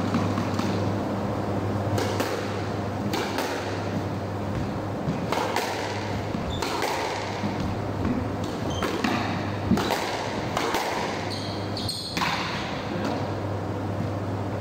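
Squash ball being struck by rackets and smacking off the court walls and floor in a rally, a sharp echoing hit about every second, with a few short squeaks of court shoes on the wooden floor. A steady low hum runs underneath.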